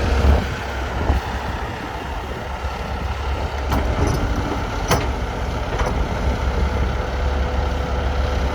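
Heavy diesel engine of an excavator loading a dump truck, running steadily with a deep rumble, with a few sharp knocks in the middle.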